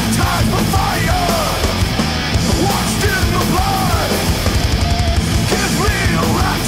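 Heavy rock/metal song played by a three-piece band: distorted electric guitar, bass and driving drums, with an arching melodic line over them repeating every second or so.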